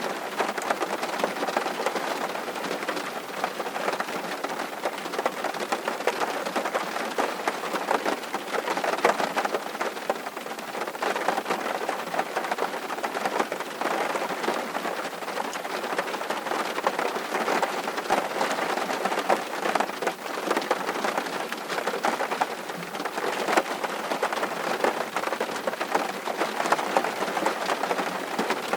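Steady rain, with a dense spray of small drop hits over an even hiss and no thunder rumble.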